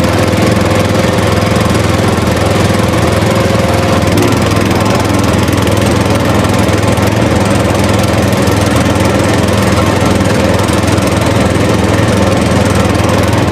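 A small motor running steadily with a loud buzzing hum, cutting off abruptly at the end.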